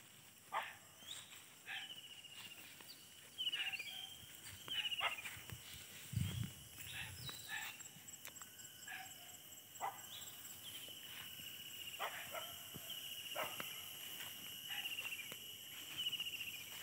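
Animal calls, with repeated short sharp calls and several chirping trills over a steady high whine. There is a low thump about six seconds in.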